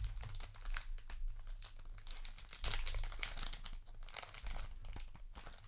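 Trading-card booster pack wrapper being torn open and crinkled by hand, as irregular crackling rustles.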